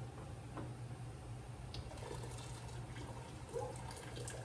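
Hot water dripping and trickling as sterilized canning jars are handled in a pot of hot water, with a few faint clicks.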